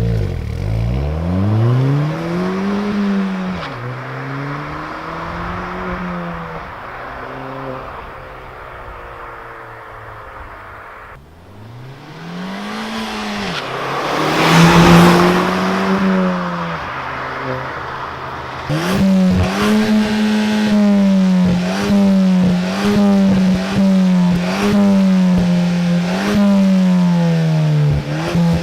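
Ford Fiesta ST200's 1.6 EcoBoost turbo four-cylinder, revved through a Milltek cat-back exhaust. The engine note rises and falls in a few long sweeps, then for the last third is held high with quick dips about once a second.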